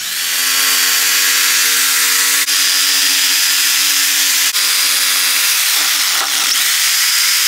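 Corded jigsaw cutting a circular tweeter hole in an MDF door-panel board, the motor running at a steady high speed with the blade rasping through the board. About six seconds in, the motor briefly slows under load and then picks back up.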